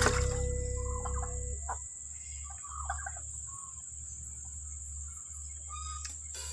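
Background music fades out over the first couple of seconds, then a chicken makes a few soft, short calls.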